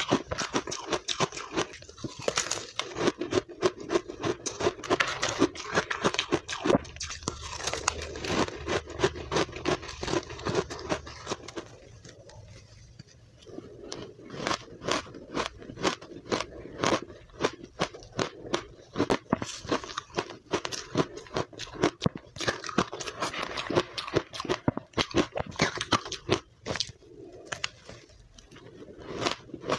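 Close crunching and chewing of blender-shaved powdery ice coated in matcha powder, bitten off a spoon in quick irregular crunches, easing off briefly about twelve seconds in.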